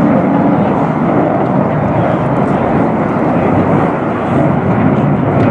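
Loud, steady jet noise from an F-22 Raptor's twin Pratt & Whitney F119 turbofans as the fighter pulls a tight, high-g turn with vapour streaming off its wingtips.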